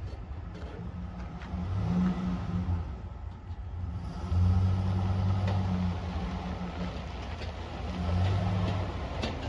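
Ford 6.8L V10 gasoline engine of a Class A motorhome running with a steady low hum. It swells louder three times, about 2 s, 4.5 s and 8 s in.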